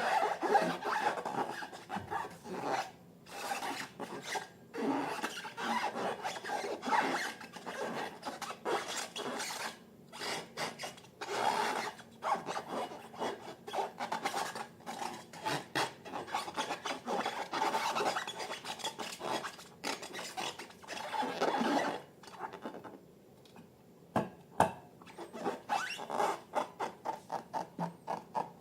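Slime being mixed and worked, making rapid sticky crackling and rasping sounds; near the end it comes as a regular series of squelches, about three a second.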